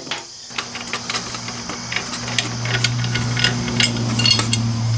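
Wrench and bolts clinking and ticking on the aluminium foot-peg bracket as it is unbolted, with a steady low hum underneath that grows louder.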